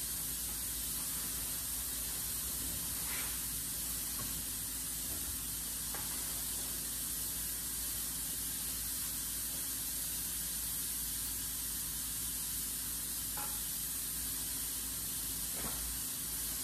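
Steady, even background hiss, with a few faint light knocks.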